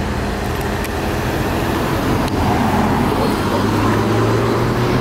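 A car driving past on the road close by, its engine and tyres getting louder about halfway through.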